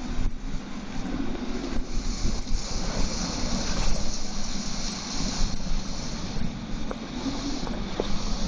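Strong gusting wind of a severe storm, 60+ mph, rushing steadily with a heavy low rumble of wind noise on the microphone that rises and falls with the gusts.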